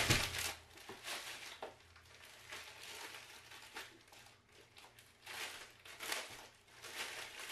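Plastic packaging and thin wrapped sheets rustling and crinkling as they are handled and lifted out of a cardboard box, on and off with quiet gaps.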